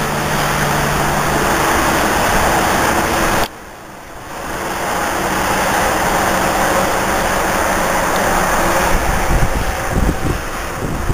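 Steady rush of highway traffic on Interstate 29, cars and trucks passing continuously. It drops out suddenly for about a second a few seconds in, and wind buffets the microphone near the end.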